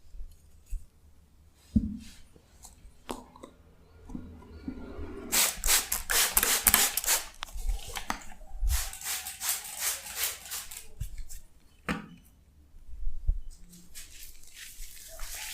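Close-miked crackling and squishing of shaving foam being worked during a facial cleansing, in two stretches of a couple of seconds each, with a few soft knocks between.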